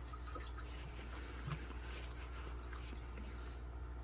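Quiet steady low hum of room tone with a few faint clicks and a soft knock about one and a half seconds in.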